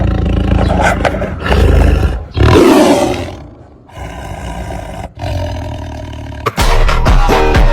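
A string of loud wild-animal roars and screams, several separate calls, the loudest about two and a half seconds in and fading away over about a second. Music with a beat comes back near the end.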